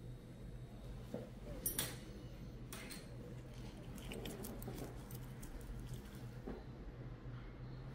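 Faint clicks and scrapes of small metal podiatry instruments at work on a toenail, two sharper ones in the first three seconds and a run of light ticks about halfway through, over a steady low hum.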